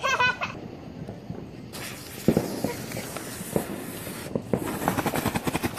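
Ground fountain firework hissing as it sprays sparks, starting suddenly a little under two seconds in, with crackling building up near the end. A few low thumps sound while it burns.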